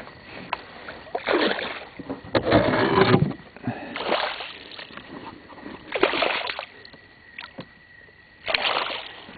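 Water splashing and sloshing in about five short bursts, a second or two apart, as a hooked walleye thrashes at the side of the boat while it is landed.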